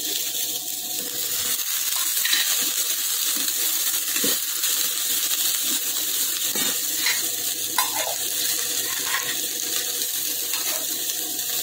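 Ridge gourd peels, shallots and tomatoes sizzling as they are sautéed in a nonstick pan, with a steady hiss. A steel perforated ladle stirring them makes scattered light clinks and scrapes against the pan.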